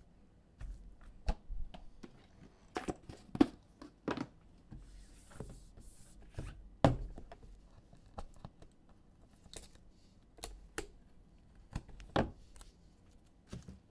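Hands handling a cardboard card box and hard plastic graded card slabs on a table: scattered knocks, taps and clicks, with a short rustling slide about five seconds in.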